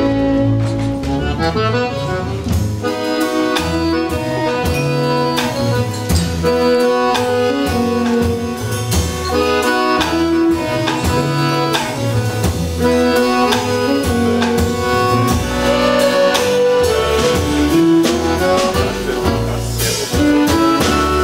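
Live instrumental quartet of violin, accordion, double bass and drum kit playing a tune together, the accordion most prominent, over a walking bass line and steady drum strokes.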